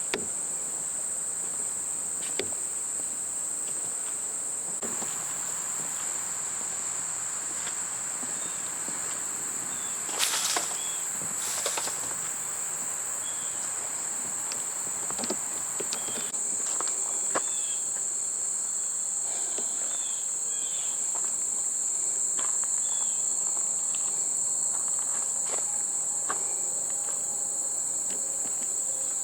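Steady, high-pitched chorus of insects trilling without a break, with a few faint short chirps over it and a couple of brief sharp noises about ten seconds in.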